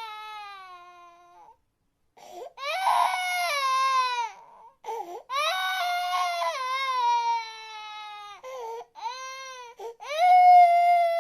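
A young child crying hard: a string of long wails, each sliding down in pitch, broken by short, catching sobbing breaths. The loudest wail starts near the end.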